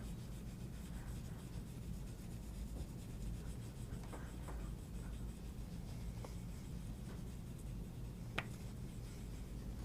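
Faint scratching of colouring on paper, a few soft strokes, with one light tick near the end.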